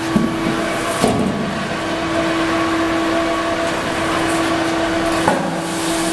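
Plastic-flake colour sorting machine running: a steady hum with a dense rattling hiss over it. A few short knocks of handling come through, about a second in and near the end.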